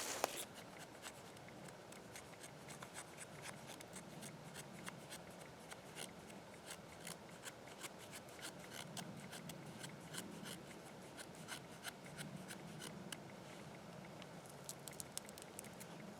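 A knife shaving thin strips off a piece of dry wood for tinder: a quiet series of short, irregular scraping strokes.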